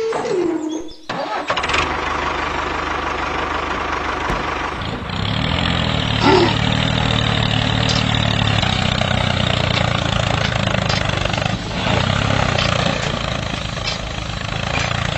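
A tractor engine starting and then running steadily, with a low even note settling in about five seconds in and a brief louder blip a second later.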